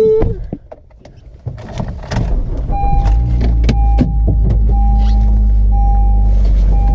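Car door and cabin clicks, then the car's engine starts and idles steadily, while a dashboard warning chime sounds as a steady tone broken by short gaps.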